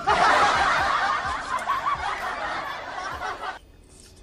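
Edited-in laughter sound effect, a dense burst of laughing that starts abruptly and cuts off suddenly after about three and a half seconds.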